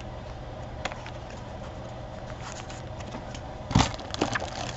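Craft supplies being handled on a desk: a light click about a second in, then a louder knock and a few short rustling clicks near the end, over a steady low hum.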